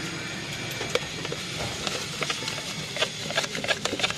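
A spoon clicking and scraping against a plastic mug as puffed rice is stirred with chopped onion and spices to mix jhalmuri, the clicks coming faster in the second half, over a steady background hiss.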